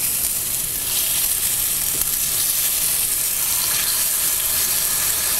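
Salmon fillet sizzling steadily on a hot electric indoor grill as maple syrup is poured over it.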